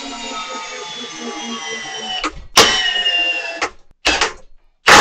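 Milwaukee M18 Fuel cordless hammer drill in low gear (speed 1) driving a 12-inch lag bolt into timber, its motor whine slowly sinking in pitch as the load grows. About two and a half seconds in comes a loud clunk; the motor runs on briefly and stops, followed by a couple of sharp knocks.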